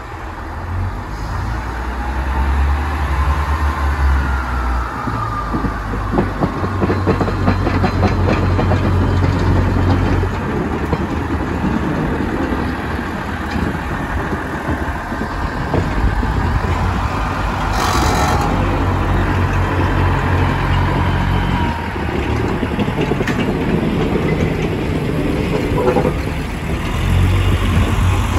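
Class 143 Pacer diesel railcar's underfloor diesel engines running as the unit moves slowly along the track, a low drone that rises and falls every few seconds, with wheels and running gear rumbling. There is a short, sharp hiss about two-thirds of the way through.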